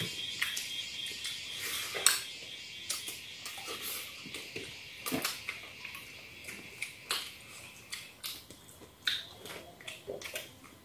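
Eating sounds from a shared meal: soft smacking and chewing, and fingers working rice on plates, heard as scattered short clicks over a faint steady hiss.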